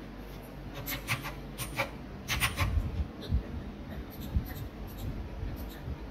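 A run of short scratchy clicks and rubbing, densest in the first three seconds, with a few dull low thuds mixed in.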